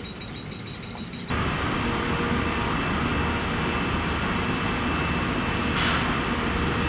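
Steady din of dyehouse factory machinery with a faint constant hum, starting abruptly about a second in after quieter room sound.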